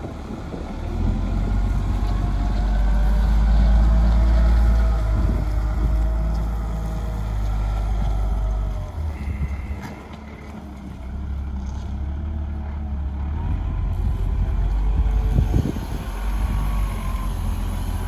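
Volvo wheel loader's diesel engine running under load as the machine drives and lifts, its note rising and falling. It eases off briefly about ten seconds in, then builds again.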